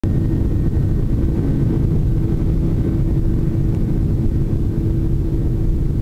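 Jet airliner's turbofan engines and cabin noise heard from inside the cabin while the plane rolls along the ground: a steady low rumble with a steady hum.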